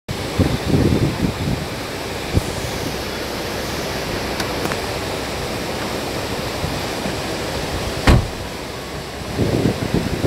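Fast, muddy river water rushing steadily over rocks. Low buffeting from wind on the microphone comes near the start and again near the end, and there is one sharp knock about eight seconds in.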